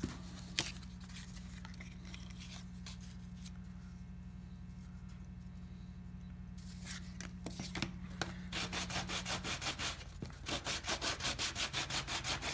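Oak rudder blank being hand-sanded with a wooden sanding block, in rapid even back-and-forth strokes that start about two-thirds of the way in and grow louder. Before that there is only a steady low hum and a few light handling clicks.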